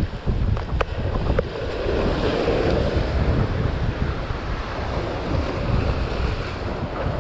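Wind buffeting the microphone over surf breaking and washing against a rocky breakwater; the wash of a wave swells about two seconds in. A few light clicks in the first second and a half.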